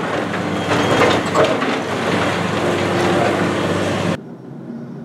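Excavator demolishing a brick building: loud crashing and clattering of falling masonry and metal debris over the steady hum of the machine's engine. It cuts off abruptly about four seconds in, leaving a much fainter rumble.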